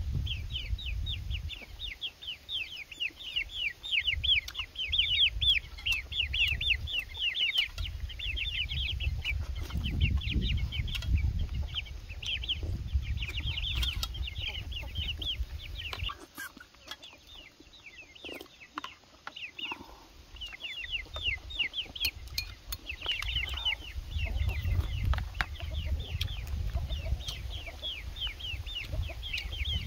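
Chickens calling: a dense, continuous stream of quick, high, downward-sliding peeps that thins out for a few seconds past the middle, over a low rumble.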